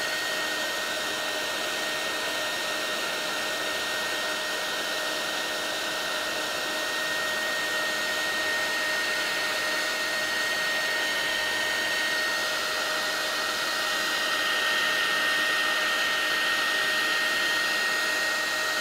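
Heat gun blowing hot air steadily onto a circuit board to reflow its solder: a continuous rushing hiss with a steady high whine over it.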